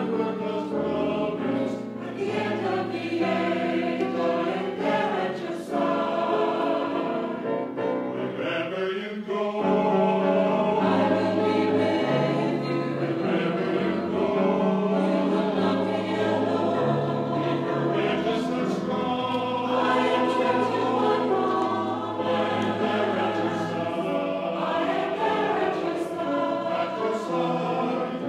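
A choir singing slow music in sustained chords that change every second or two over a steady bass line.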